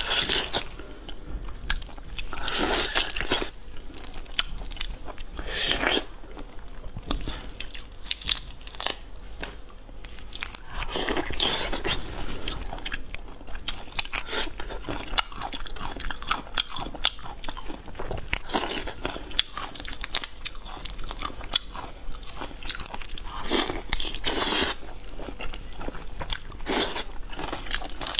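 Biting and crunching through whole shell-on prawns, with chewing and crackly shell clicks between bites. Louder spells of crunching come every few seconds, picked up close by a clip-on microphone.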